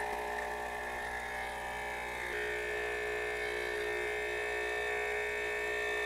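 ChefWave CW-NCM01B capsule espresso machine's 20-bar vibratory pump buzzing steadily as it pushes hot water through on a rinse without a capsule, heard sped up fourfold. The buzz grows stronger about two seconds in.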